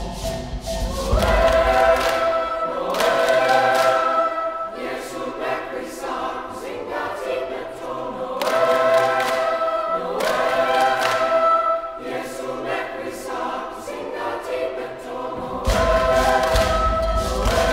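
Boys' choir singing together in phrases a few seconds long. A deep, low-pitched musical accompaniment drops out about two seconds in and comes back near the end.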